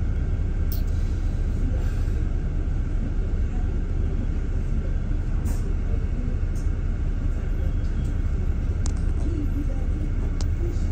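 Double-decker bus running along a street, heard from inside on the upper deck: a steady low engine and road rumble, with a few faint clicks.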